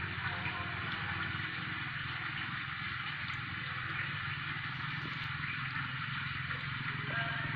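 Steady background noise: an even hiss with a low hum underneath, and no distinct events.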